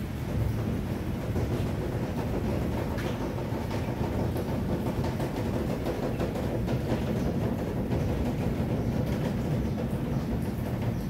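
Steady rain falling on a paved courtyard, over a continuous low rumble.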